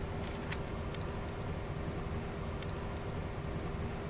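Steady flight-deck ambience of a parked Boeing 737-800: an even rush of air with a low rumble and a constant hum, with a few faint clicks scattered through it.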